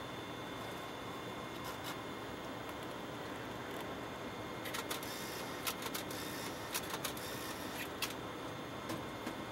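Steady hiss and hum of the Space Shuttle Columbia's crew cabin, with a few thin steady whine tones. About halfway through, a run of sharp clicks and ticks lasts for about three seconds.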